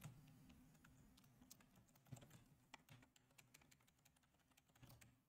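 Very faint computer keyboard typing: a few scattered keystrokes with near silence between them.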